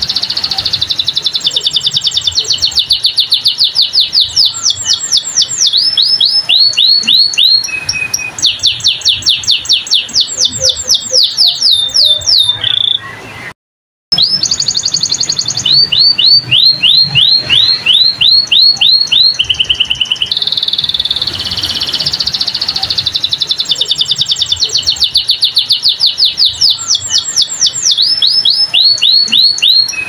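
Domestic canary singing a long, fast song of rapid trills and rolls, switching to a new repeated phrase every second or few. The song drops out completely for under a second about thirteen seconds in.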